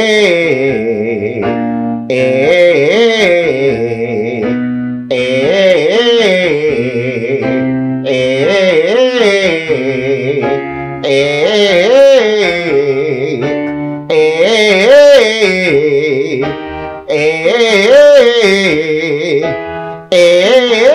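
A man singing a vocal exercise on a narrowed "ay" vowel over piano accompaniment: a short interval pattern of gliding notes with vibrato, repeated about every three seconds.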